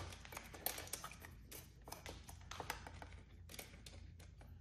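Faint, irregular clicks and ticks of an Allen key turning in a socket-head screw as the screws are tightened down into T-nuts in the frame rail.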